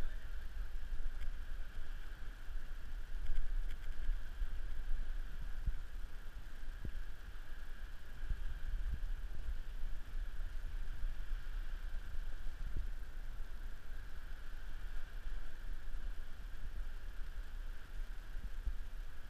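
Wind rumbling and buffeting on the microphone, with a faint steady high-pitched drone underneath.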